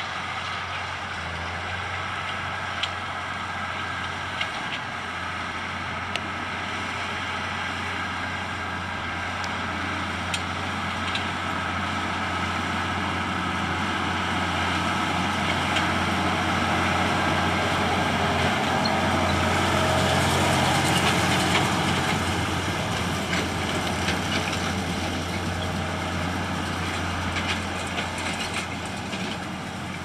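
Deutz tractor pulling a Claas Rollant round baler while baling straw: the engine runs steadily under load along with the baler's working noise, growing louder as it comes close, loudest a little past the middle, then easing off as it moves away. A few light clicks are heard now and then.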